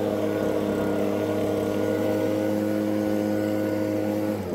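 Leaf blower running steadily, blowing wet leaves across a lawn: an even, pitched motor hum that dips briefly in pitch right at the end.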